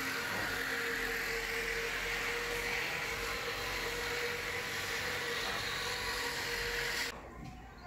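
Floor edger sander running, its spinning sanding disc grinding down the seams of an OSB subfloor: a steady hum with a steady whine over it. The sound stops abruptly about seven seconds in.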